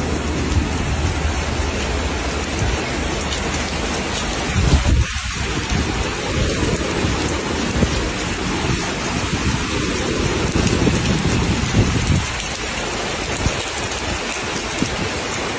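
Heavy rain pouring down steadily, a dense hiss of drops on paving and rooftops. Low rumbles swell and fade beneath it, most strongly about five seconds in and again between about eight and twelve seconds.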